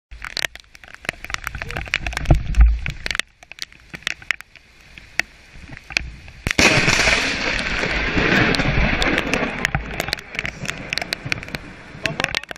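Scattered clicks and crackles, then about six and a half seconds in the sudden crash of a close lightning strike, with several seconds of loud rushing thunder-noise after it.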